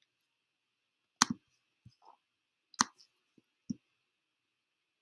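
Clicking on a laptop: a quick double click about a second in, a sharp single click near the middle, then a duller knock, with a few faint taps between.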